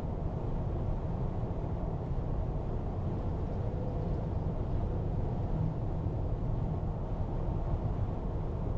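Steady road and engine noise heard inside a car's cabin while cruising at highway speed: a low, even rumble.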